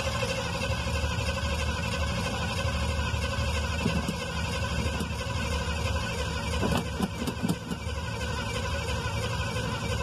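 Engine of an old three-quarter-ton pickup truck idling steadily, heard from inside the cab, with a few light clicks or knocks about seven seconds in. The owner believes the motor is blown, with oil showing in the radiator.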